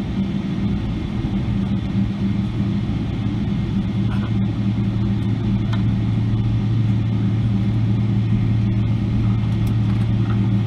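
Cabin noise of a Boeing 777-300ER taxiing after landing, its GE90 engines running at idle: a steady drone with a low hum that grows a little stronger about three seconds in.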